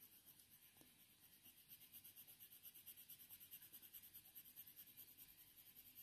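Very faint scratching of a Faber-Castell Polychromos coloured pencil shading with light pressure on hot-press watercolour paper, starting a little under two seconds in as quick, even strokes, about four or five a second.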